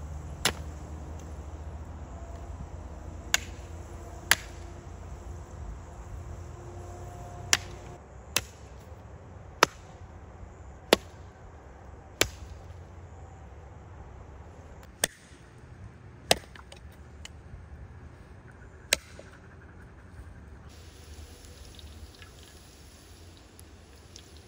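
About eleven sharp single chopping strikes, spaced irregularly a second or more apart, over a steady low rumble.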